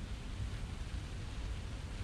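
Wind on the microphone, a steady uneven low rumble with a faint hiss and no distinct events.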